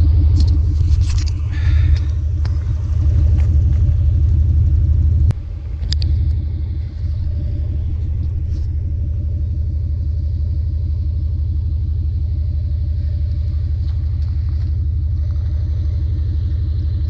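A loud, steady low rumble with a constant hum in it, dipping briefly about five seconds in.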